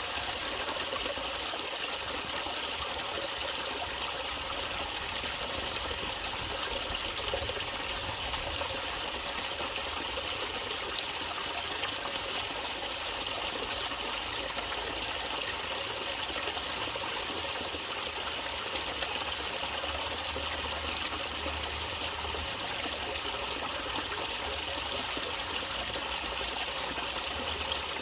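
Natural stream water trickling and flowing steadily, with no pauses or changes.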